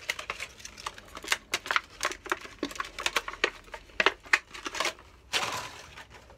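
Stiff clear plastic blister packaging crinkling and crackling in a rapid series of sharp clicks as a cordless tool battery is worked out of it, with a longer rustle about five seconds in.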